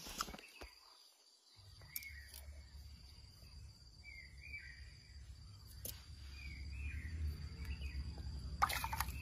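A low outdoor rumble with a few short bird chirps. Near the end a sudden burst of splashing begins as a hooked catfish thrashes at the water's surface.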